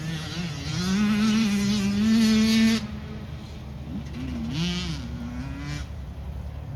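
Small off-road racing motorcycle engine with a high, buzzing note. It revs up and is held on the throttle, is chopped off sharply about three seconds in, then revs up and down again.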